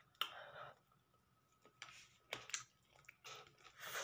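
Quiet eating sounds: scattered small mouth clicks and lip smacks with short soft chewing and breathing noises, about half a second near the start and again near the end, as spicy chicken wings are eaten with the fingers.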